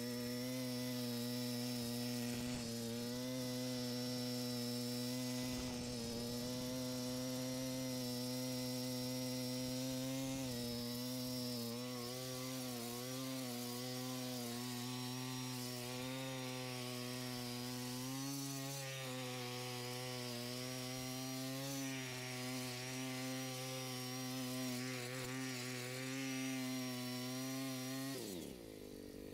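Small gas-engine mini tiller running steadily while tilling soil, its pitch wavering slightly now and then. About a second before the end the engine shuts off, its pitch falling away as it winds down.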